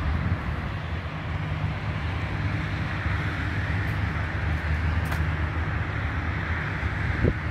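Steady low rumble and hiss of distant road traffic.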